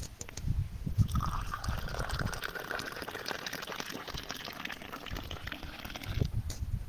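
Tea poured in a steady stream from a teapot into a glass, starting about a second in and stopping shortly before the end.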